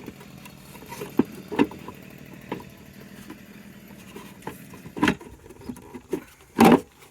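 Plastic tail light housing of a minivan being pushed and wiggled into its mounting holes: scattered clicks and knocks, with a louder scraping rattle near the end.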